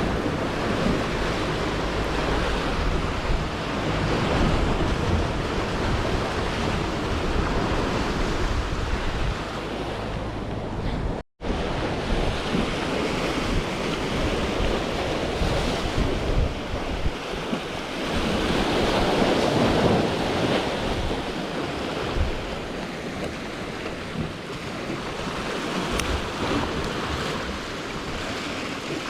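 Sea waves washing against the concrete tetrapods of a breakwater, with wind buffeting the microphone in a steady rumble. The sound cuts out for an instant about eleven seconds in.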